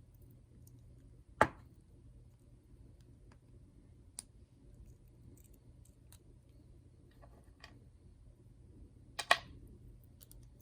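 Sharp clicks and small ticks of jewelry pliers working a brass jump ring: a loud click about a second and a half in, a fainter one around four seconds, and a loud double click near the end.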